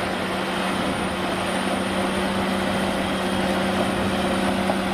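A small motor running steadily, a constant hum over an even hiss, during the cleaning of a muddy toy bulldozer.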